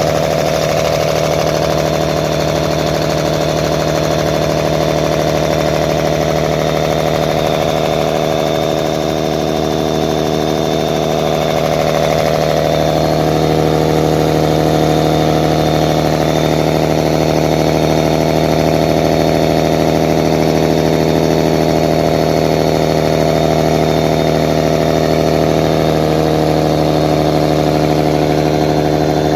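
Mercedes-Benz OM-352/A turbocharged inline-six diesel engine, out of its vehicle, running at a steady, even speed.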